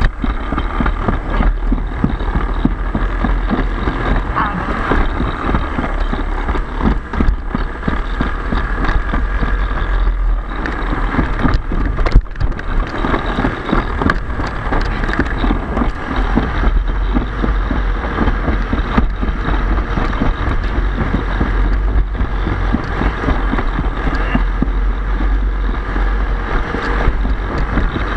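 Alpine slide sled running fast down its concrete track, a steady rattle and rumble from the runners on the trough, with wind buffeting a head-mounted camera's microphone.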